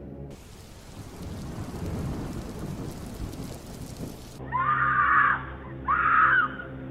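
A steady hissing, rumbling noise for about four seconds. Then a woman screams twice through a doorbell camera's narrow, humming audio.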